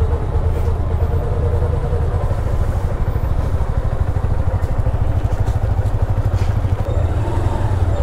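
Honda Hornet 160R's single-cylinder engine running steadily, warmed up, with no clear revving.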